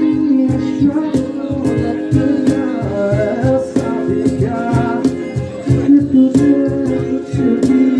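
A small live band playing: electric and acoustic guitars strumming chords over a steady beat, with a voice singing over it.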